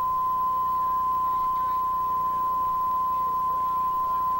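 Bars-and-tone line-up tone on a videotape: the standard 1 kHz reference tone that goes with colour bars, a single steady pure tone held unbroken.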